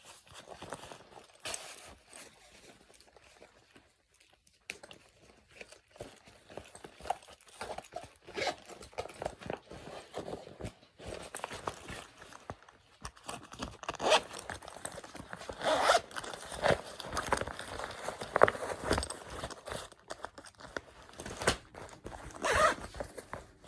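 Backpack zippers being pulled open and shut in a series of short, scratchy runs, busier and louder in the second half.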